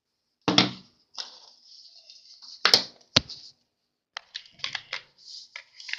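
Hands handling a plastic toy fire truck and its loose parts: two or three sharp knocks and clicks, then a quick run of small clatters near the end.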